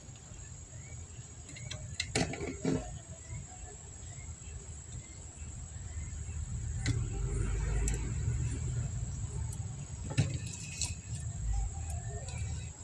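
Workbench handling sounds: a screwdriver and amplifier circuit boards being knocked and moved, with several sharp clicks and taps about two seconds in and again around seven and ten seconds. Under them are a low rumble and a faint steady high tone.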